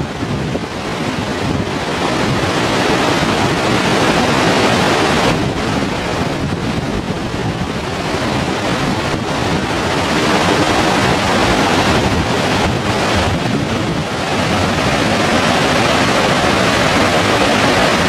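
Large waterfall plunging onto boulders: a loud, steady rush of falling water and spray, with wind buffeting the microphone.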